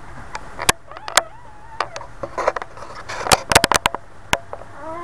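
Newborn Boxer puppies nursing: irregular wet sucking clicks and smacks, thickest in a quick cluster about three and a half seconds in.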